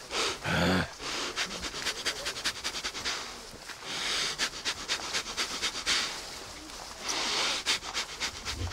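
A man doing a forceful breathing exercise: quick series of sharp, rapid breaths through the nose, about four to five a second, broken up by a few longer, deeper breaths.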